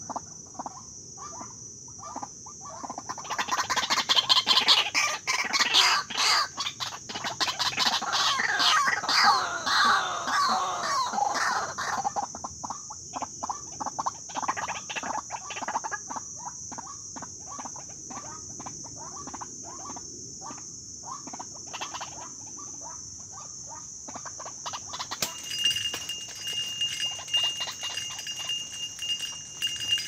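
White-breasted waterhens calling: a loud, dense jumble of harsh, fowl-like calls for several seconds, then a quieter run of short repeated notes. A steady high insect buzz runs underneath.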